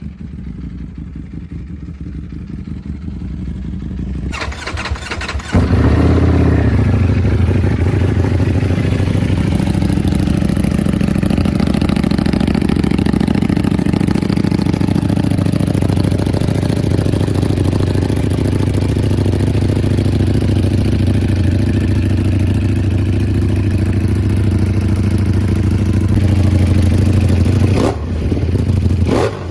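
Ducati Panigale V4's V4 engine running through an aftermarket exhaust: a lower rumble at first, then from about five seconds in a loud, steady engine note that holds until it drops near the end.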